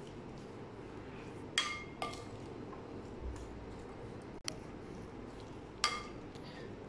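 Spoon clinking against a glass mixing bowl while a moist vegetable-and-cream mixture is stirred: a few short ringing clinks, two close together about one and a half to two seconds in and another near the end, with a faint click in between.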